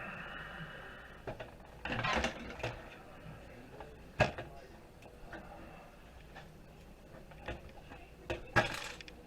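Scattered clicks and knocks of a screwdriver and loose screws on a desktop computer's metal case as the motherboard screws are taken out, with the loudest knock near the end.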